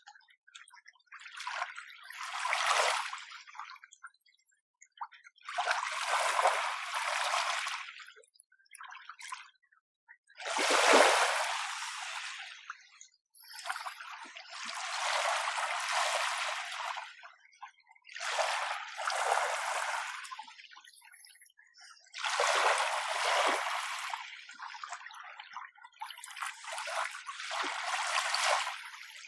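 Small, gentle waves washing in on a shore. About eight soft washes come one after another, each a few seconds apart, with short quiet gaps between them.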